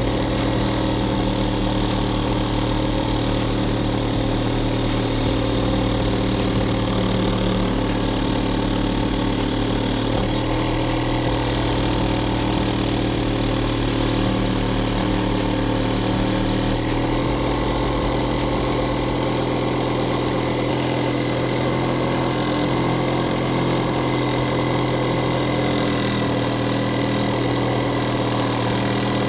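Electric drill running steadily at low speed, driving a reciprocating saw adapter that moves a blade up and down as a homemade scroll saw; a continuous motor hum with a slight change in tone about two-thirds of the way through.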